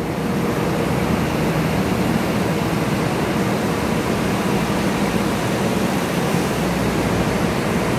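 Coach diesel engines running as the buses creep onto a ferry's enclosed car deck: a loud, steady noise with a low hum underneath.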